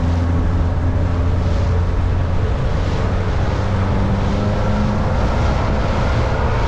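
A boat's engine running steadily under way, a constant low hum, with wind buffeting the microphone and water rushing past the hull.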